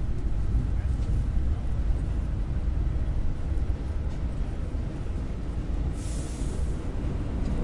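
New York City subway train running, a steady low rumble, with a short high hiss about six seconds in.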